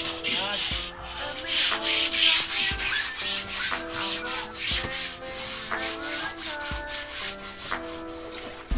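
A hand scrub brush scrubbing the wet, soapy cover of a mattress in repeated rubbing strokes.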